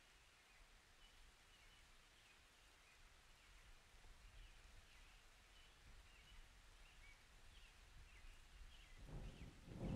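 Faint ambience with scattered small bird chirps; about nine seconds in, a low rumble of distant thunder starts to swell.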